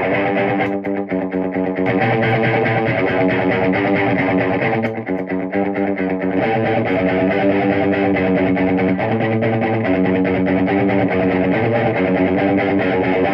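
Overdriven electric guitar played through a Peavey 6505+ combo amp fitted with an Eminence Texas Heat speaker: ad-libbed chords and notes held for a second or two each, with short breaks in the playing about a second in and again about five seconds in.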